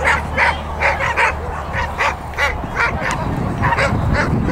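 A dog barking over and over in short, sharp barks, about three a second.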